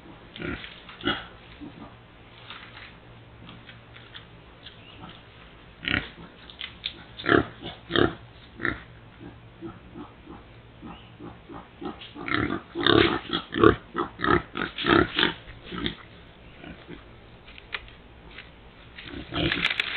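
Feral hog rooting and feeding with its snout in the ground litter. Short, irregular sounds come thickest in two busy spells, one about a third of the way in and a longer one past the middle.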